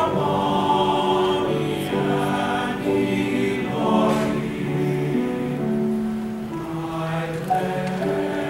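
Mixed choir of men's and women's voices singing together in slow, sustained chords.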